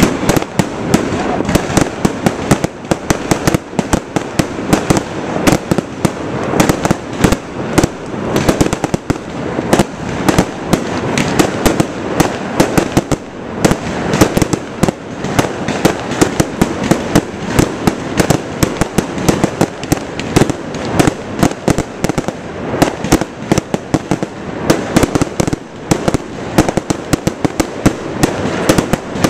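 Aerial fireworks shells bursting in a rapid, continuous barrage of sharp bangs and crackles, many per second.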